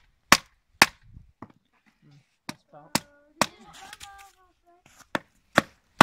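A hatchet being batoned into a thick log to split it: sharp knocks of the striking stick on the hatchet's back, about eight in uneven groups of two or three.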